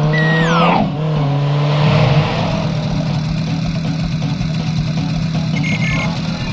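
Cartoon sound effects: a steady engine-like hum, with a short falling whistle in the first second and a few brief high beeps near the end.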